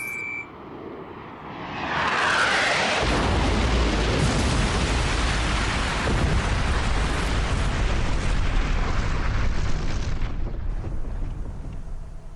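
A short electronic lock-on beep, then a huge explosion that swells up about two seconds in and rumbles deeply for about eight seconds before fading.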